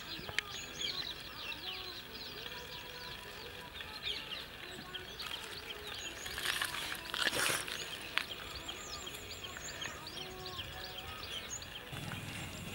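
Birds chirping and calling all through, with a high pulsing trill at times. About halfway through comes a brief loud rustle of banana leaves being handled.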